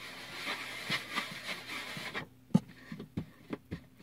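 Hands kneading and rolling soft homemade play dough on a floured surface: a rubbing, scraping sound, then from about halfway several sharp, irregular knocks against the surface.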